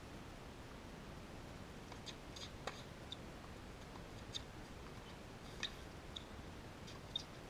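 Faint tennis rally: sharp pocks of a racket striking the ball, and the ball bouncing, every second or two, over a steady hiss of outdoor air.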